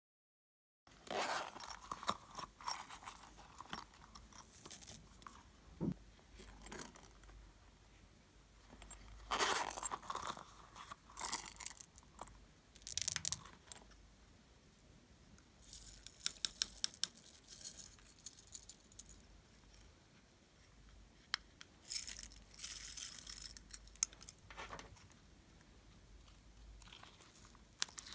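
Glossy slime being squished and stretched by hand: sticky crackling in irregular bursts, with a run of quick sharp popping clicks a little past halfway.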